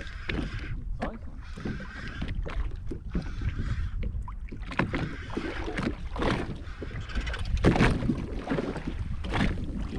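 Water sloshing and slapping against a jet ski's hull, over a steady low rumble, with a run of knocks and splashes in the second half, the loudest at about eight seconds.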